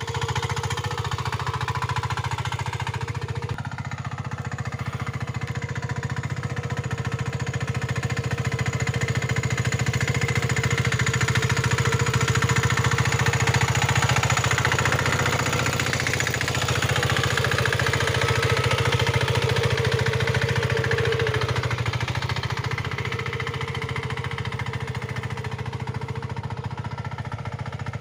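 5.5 hp single-cylinder diesel engine of a power weeder running steadily, with a rapid, even chugging of firing strokes.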